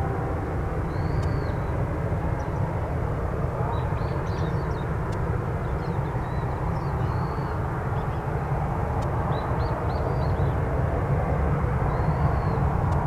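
Distant jet engines of a Boeing 737-800 (CFM56 turbofans) running as a steady low rumble while the airliner slows and taxis off the runway after landing, growing a little louder about ten seconds in.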